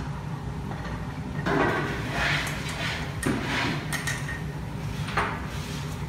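A metal wing nut being unscrewed from the threaded spindle on the plastic lid of a Speidel bladder press, then set down with its washer: a handful of short scrapes and small metallic clinks over a steady low background hum.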